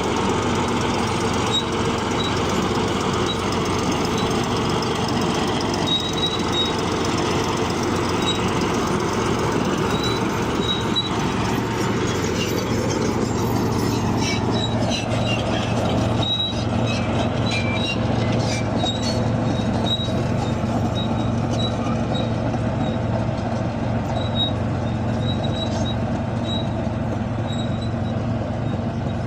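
Bulldozer's diesel engine running steadily under load, with short high squeaks from the steel tracks recurring throughout.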